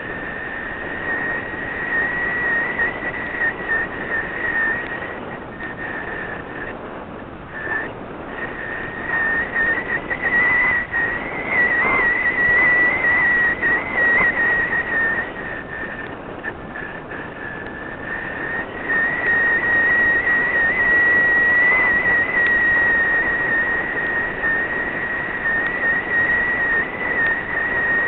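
Air rushing past a model rocket's onboard camera as it descends, with a steady high whistle that wavers slightly in pitch throughout. The rushing grows louder about ten seconds in and again near twenty seconds.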